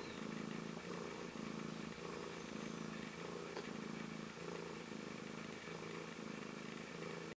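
Mother domestic cat purring steadily to her newborn kittens as they nurse. It is a low, even purr that swells and eases about once a second with her breathing, and it lets the kittens find her by sound.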